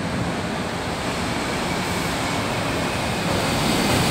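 Steady rushing roar of road traffic under a concrete flyover, with no distinct events standing out.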